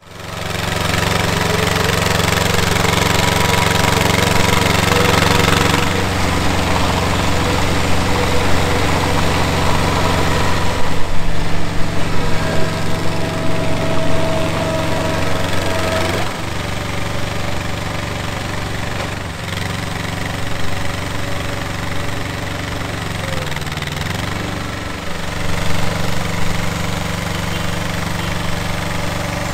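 Engine of a Dando Terrier 2002 tracked drive-sampling drilling rig running steadily as the rig is driven. It gets louder and uneven about eleven to fourteen seconds in, and its pitch dips briefly a few times.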